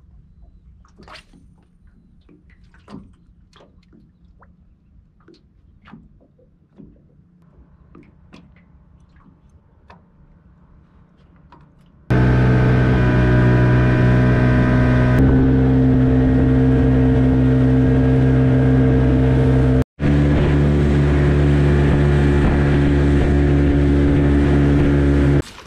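Faint clicks over a quiet background, then about twelve seconds in the steady, loud drone of an outboard motor driving an aluminium tinny along at speed. Near the end there is a brief drop-out, after which the motor's pitch is slightly different.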